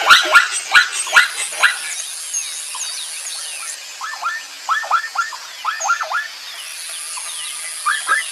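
Zebra calling: a fast series of loud, barking yelps in the first couple of seconds, then quieter repeated calls in short groups of two or three. A steady high hiss comes and goes twice behind them.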